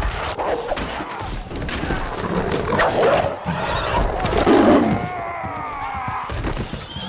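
Film battle sound mix: horses whinnying, with crashes and thuds as a horse and rider fall, over orchestral music. A long whinny sounds about five seconds in.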